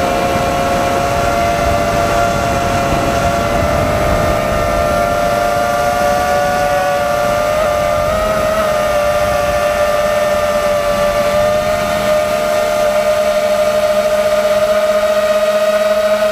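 FPV quadcopter motors and propellers whining steadily, with the pitch wavering briefly around the middle as the throttle shifts, over a rush of wind and prop wash.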